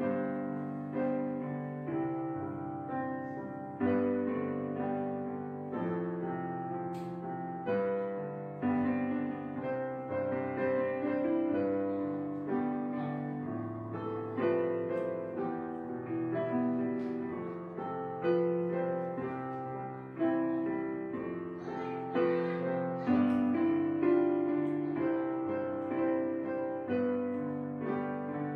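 Background piano music: a slow melody of struck notes and chords, each fading before the next, about one a second.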